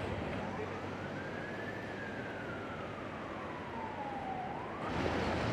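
An emergency-vehicle siren wailing over steady outdoor background noise: its pitch rises over about two seconds, then falls slowly, and turns upward again near the end.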